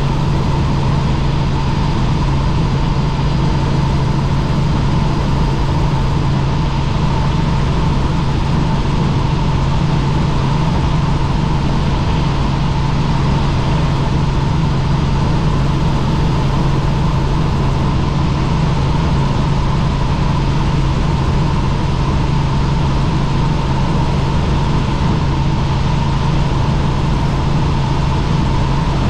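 Helicopter in flight: a steady engine and rotor drone, a strong low hum with a constant higher tone over even noise, unchanging throughout.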